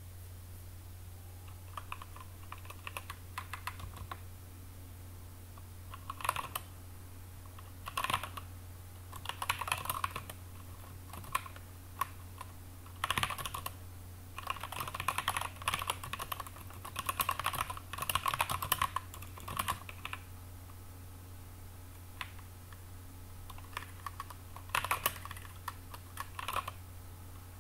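Typing on a computer keyboard while writing code: irregular bursts of key clicks with short pauses between them, busiest in the middle, over a steady low hum.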